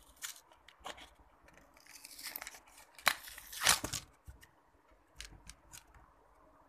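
Paper-card and plastic blister packaging of a microSD card being torn open by hand: rustling and crinkling with small clicks, a sharp click about three seconds in, then a loud rip just after it.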